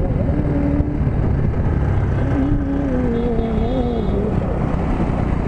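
Bajaj Pulsar NS125 motorcycle engine running while riding, a steady low rumble mixed with wind noise on the microphone. Its note wavers and falls between about two and four seconds in.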